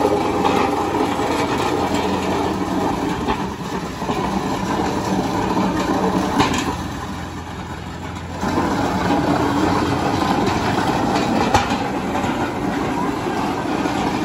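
Yanmar 39-hp diesel tractor engine running as the tractor is driven along at low speed, steady throughout, dropping quieter for a couple of seconds past the middle and then louder again.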